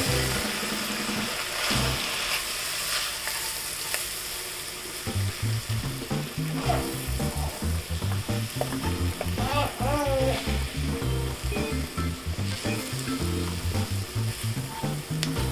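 Onions, garlic and ground spices sizzling in hot oil in a cooking pot while being stirred, the spices cooking off their raw powdery taste before water is added.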